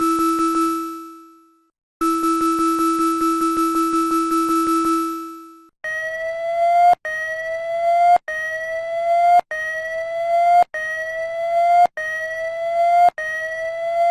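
Electronic emergency alert alarm. A buzzing steady tone fades out about a second in and sounds again for about three seconds before fading. Then, from about six seconds in, a rising tone repeats seven times, a little over one per second, each swelling and cutting off sharply.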